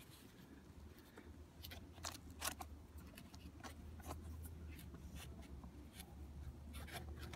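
Faint rubbing and scattered light clicks of fingers pressing a wire into the groove under a car door's rubber weather stripping, over a low steady hum.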